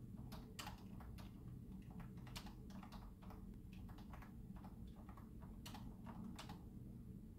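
Typing on a computer keyboard: faint, irregular key clicks in quick runs, over a steady low hum.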